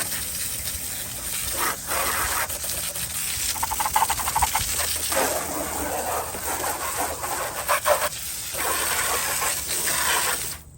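Water spray hissing and splashing against the robotic lawnmower's body, with brush scrubbing, rising and falling in surges as the jet moves over it. The spray cuts off abruptly near the end.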